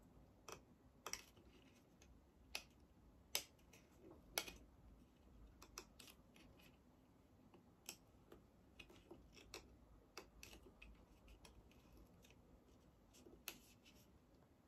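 Faint, irregular clicks and taps of fingers working at a boxed eyeshadow palette's packaging, trying to get it open; two sharper clicks stand out a few seconds in.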